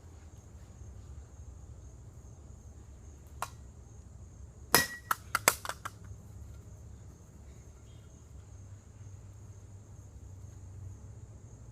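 Sharp plastic clicks of a Rubik's cube being handled and its layers turned: one click about three seconds in, then a quick run of five or six louder clicks about five seconds in, over a low steady hum.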